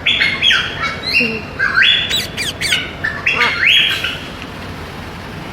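Parrots squawking: a quick series of loud calls that stops about four seconds in.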